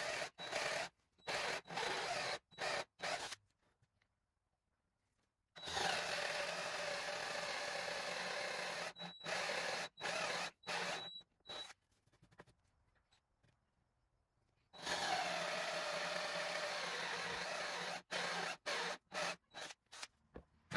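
Cordless drill boring into a wooden board with a 2-inch Forstner bit. It runs steadily for stretches of several seconds, with many short on-off bursts in between and two pauses of a couple of seconds. About fifteen seconds in, its pitch sags as the bit bites in.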